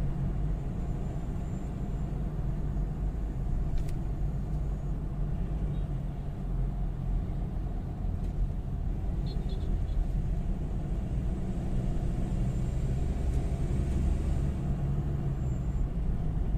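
In-cabin engine and road rumble of a 2018 Ford Ranger 2.2L diesel pickup cruising at moderate speed. The truck is running with a cracked turbo air inlet hose that leaves it short of power.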